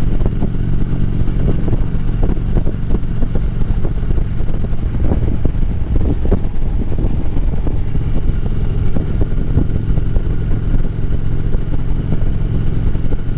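Harley-Davidson V-twin motorcycle engine running at a steady pitch while cruising, heard from the rider's camera with wind noise.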